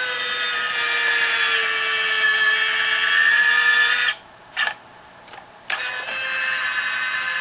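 Small DC gear motor driving the jack-screw actuator of a converted Robart 630 retract, whining steadily as it swings the landing gear down. At about four seconds in it stops as it stalls at the end of travel, then gives a brief reverse pulse to back off so it won't bind. A second or so later it starts whining again to retract the gear.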